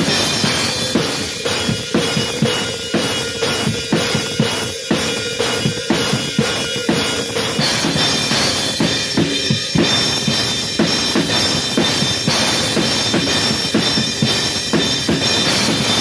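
Drum kit played in a steady, busy groove of bass drum, snare and new Zildjian cymbals, the cymbals washing over the beat and ringing brighter from about halfway through.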